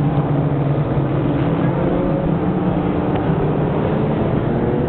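Vintage race car engines running steadily out of sight, a continuous mechanical drone, with a note creeping up in pitch near the end.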